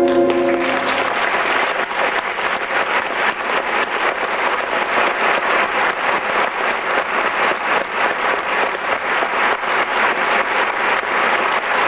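The final held chord of a stage-musical number fades out about a second in, and a theatre audience applauds steadily.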